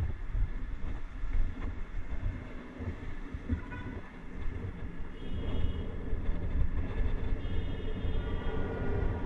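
Wind buffeting the microphone and road rumble from a bicycle riding along an asphalt avenue: a heavy, uneven low rumble. Faint high tones sound over it from about five seconds in.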